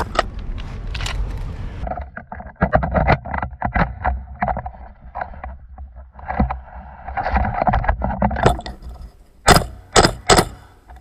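Rustling and clattering of leaves and gear as a player shifts in a leafy hide, with many small knocks and clicks. Near the end a gas blowback airsoft DMR fires three sharp shots in quick succession. A single sharp crack comes right at the start.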